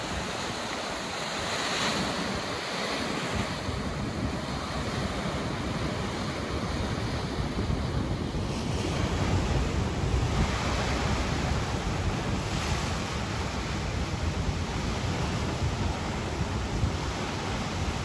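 Ocean surf washing on a beach, a steady rushing hiss that swells about two seconds in, with wind buffeting the microphone and adding a low rumble from a few seconds in.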